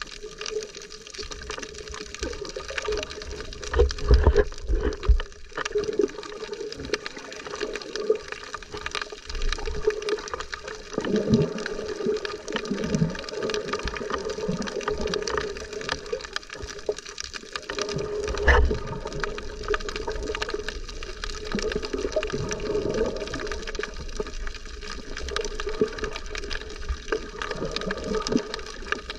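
Sea water sloshing and gurgling against a snorkeler's camera, sounding muffled. Heavy low thumps come about four seconds in and again about two-thirds through.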